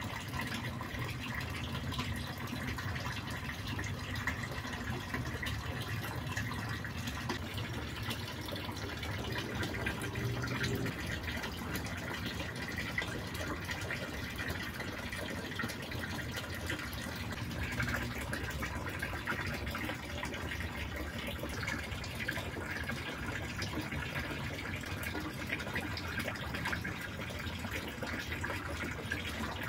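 Water pouring steadily from a pipe into a small concrete fish pond, a continuous splashing flow.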